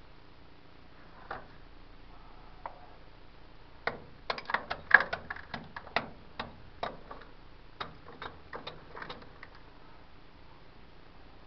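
A hand tool tapping and chipping at a rock face: a run of sharp, irregular clicks and knocks starting about four seconds in, the loudest about a second later, and thinning out near the end.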